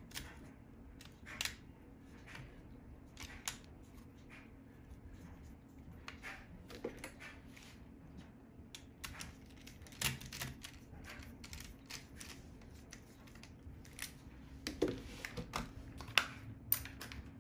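Scattered small clicks and taps of screws and metal parts being handled on an RC car's transmission as the screws are set back into the billet brake mount, with a faint steady hum underneath.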